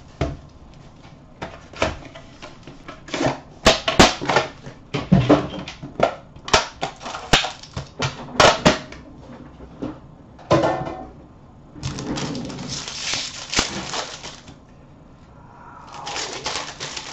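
A trading-card box and its plastic-wrapped pack being handled and opened: a run of sharp clicks and clacks of cardboard and plastic, then two longer stretches of plastic wrapping crinkling near the end.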